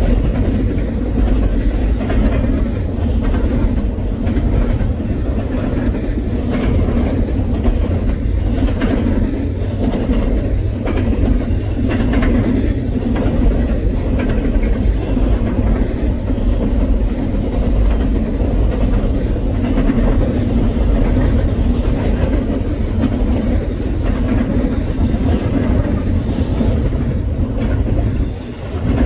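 Loaded double-stack intermodal well cars of a freight train rolling past, a steady low rumble with the wheels clicking over the rail joints. The rumble dips briefly near the end.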